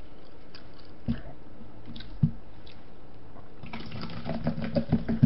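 A drink glugging as it is poured from a plastic bottle into a cup, a quick run of gurgles that starts nearly four seconds in. Two soft knocks come before it, about one and two seconds in.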